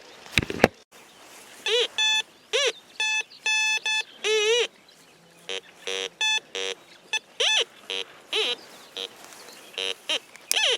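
Metal detector giving a string of short beeps as the coil is swept over buried metal: some at a steady pitch, others rising and falling in pitch, about one or two a second. A couple of sharp knocks come about half a second in.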